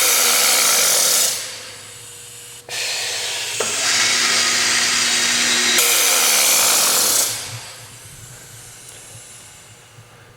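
Grass Ecopress P hinge boring machine cycling. The drill motor runs with a loud, hissing sound, then winds down in a falling whine about a second in. It starts again with a click nearly three seconds in, runs, and winds down once more near the end.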